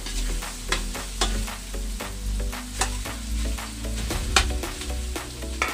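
A metal ladle stirring and scraping ground meat as it fries in a large aluminium wok, with several sharp clinks of metal on the pan, the loudest about four seconds in.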